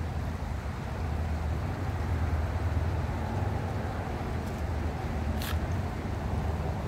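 Steady low outdoor rumble, with one short sharp click about five and a half seconds in.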